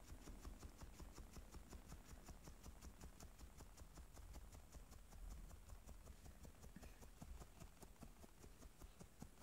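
Miniature dachshund scratching herself with a hind leg: a faint, rapid, even run of scratching strokes, several a second.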